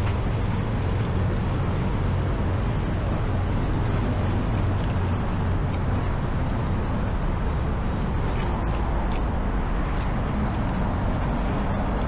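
Steady outdoor city traffic noise: a continuous low rumble of passing vehicles with no distinct events.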